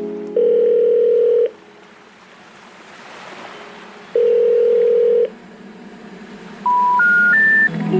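Telephone call tones: two steady ringback tones about a second long, about four seconds apart, then three short tones stepping up in pitch, like the special information tone that comes before a 'number not reachable' announcement.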